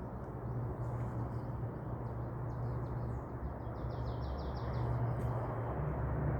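Small songbirds chirping over a steady rushing background with a low hum; about four seconds in, one bird gives a quick run of about seven repeated chirps.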